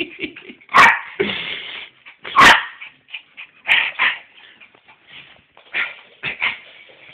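A dog barking: several short, sharp barks a second or two apart, some in quick pairs.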